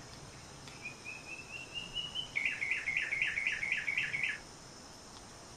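A bird singing: a run of short notes that slowly climb in pitch and grow louder, then about nine louder, rapidly repeated notes that stop after about four seconds.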